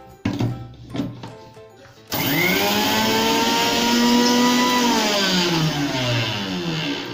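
A few knocks as the steel jar is set on the base, then a kitchen mixer grinder runs a short burst from about two seconds in, grinding mint leaves and sugar. Its motor whine rises quickly, holds steady, then falls as the motor winds down near the end.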